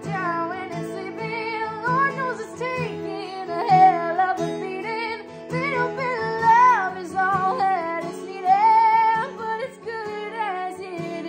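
A woman singing a country song with acoustic guitar strummed as accompaniment, her voice sliding between notes in sustained phrases.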